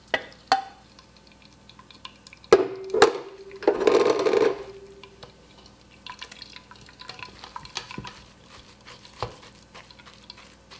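Cooked sauerkraut being tipped from a stainless steel pot into a metal mesh sieve: two sharp metal knocks and a short scrape with a brief ringing tone about 3 to 4 seconds in. After that, a wooden spoon stirs and scrapes the kraut in the sieve with light, irregular clicks as the liquid drains.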